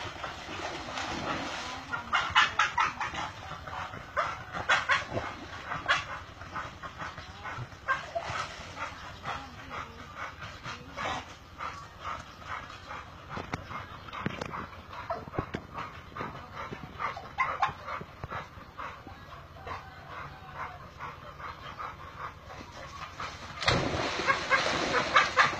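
Dogs barking in short, repeated calls, with water splashing loudly near the end as a dog plunges into a muddy ditch.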